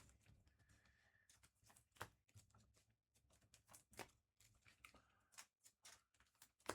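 Near silence with faint, irregular clicks of typing on a computer keyboard.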